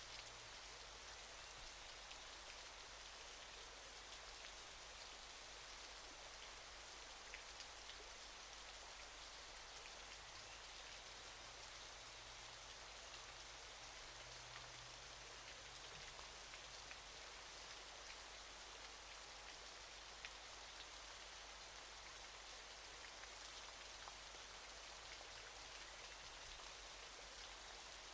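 Faint, steady hiss of falling water, with a few small drop-like ticks scattered through it.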